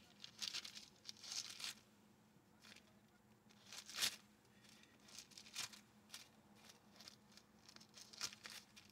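Faint rustling and crinkling of paper pages being turned in short bursts, with a sharper tap about four seconds in.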